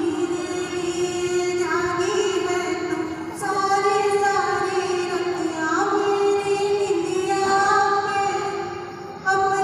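A woman singing a slow song solo into a microphone, holding each note for a second or two, with a brief pause for breath near the end before the next phrase.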